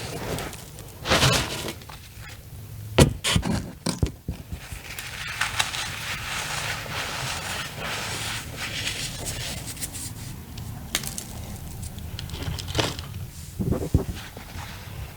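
Soft chunks of reformed cornstarch being crushed by hand, giving sharp crunches and snaps with a stretch of continuous crackly crumbling in the middle.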